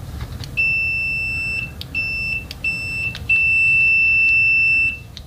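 AstroAI DT202 clamp meter's continuity beeper sounding a loud, steady high-pitched tone at its maximum output of about 82 dB. It beeps in four stretches as the test leads make and break contact, and the last stretch is the longest, about a second and a half.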